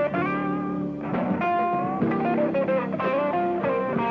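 Electric blues band playing an instrumental passage, an electric guitar leading with bent, gliding notes over the band.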